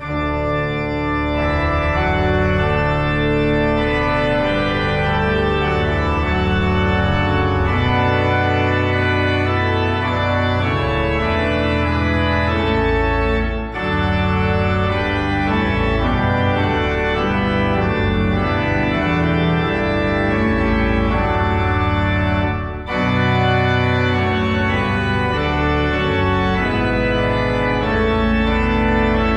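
Church organ playing a hymn tune in full, sustained chords, with short breaks between phrases about 14 and 23 seconds in.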